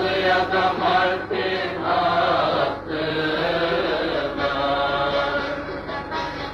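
Old film-soundtrack folk music: several voices singing together in a chant-like style over a long-necked saz and a reed pipe, the phrases separated by short breaths.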